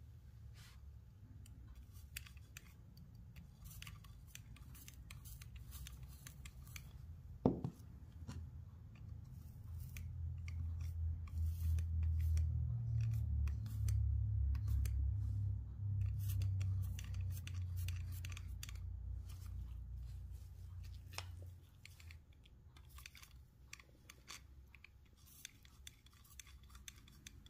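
Soldering a copper-foiled stained glass edge: light crackling ticks of flux and solder under the soldering iron tip, with one sharp click about a quarter of the way in. A low rumble swells in the middle and dies away some seconds before the end.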